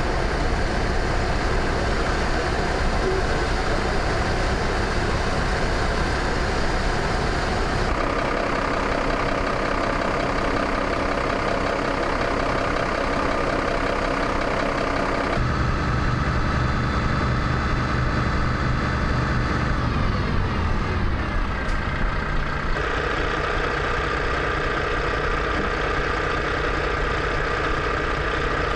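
Fire engine diesel engines running steadily while parked. The engine sound changes abruptly three times as one running truck gives way to another.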